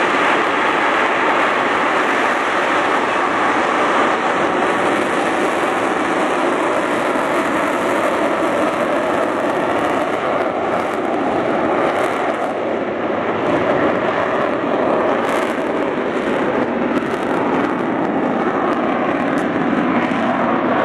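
RAF Harrier jump jet's Pegasus vectored-thrust turbofan running loud and steady at high thrust as the jet hovers and then climbs away.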